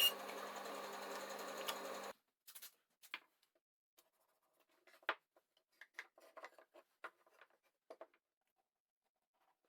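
A small power tool's motor running steadily, cutting off suddenly about two seconds in. Faint, scattered taps and clicks follow.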